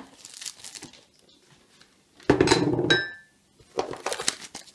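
A plastic tool case holding a steel coil spring compressor is handled and opened. About halfway through comes a clatter that ends in a short metallic ring as the steel parts inside clink, followed by softer rustling of plastic wrap.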